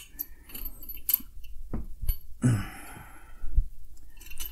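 A few light clicks and knocks of metal parts being worked into a chrome beer-tower column, with a strained breathy exhale about halfway through.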